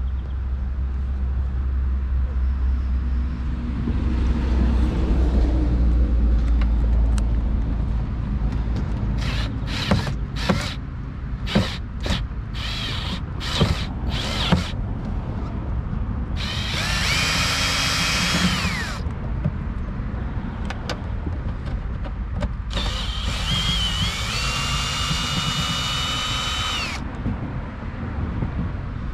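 Cordless drill-driver backing out screws, likely with a 7 mm socket: two runs of a few seconds each, the motor whine rising then holding steady. Before them come a low rumble and a run of sharp clicks and clatter from handling the screws and bits.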